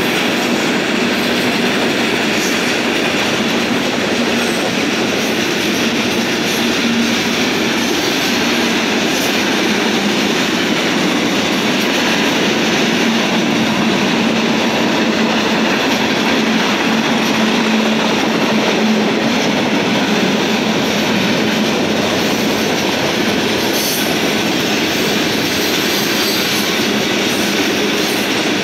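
Freight train of tank cars and covered hopper cars rolling past: steady, unbroken noise of steel wheels on rail.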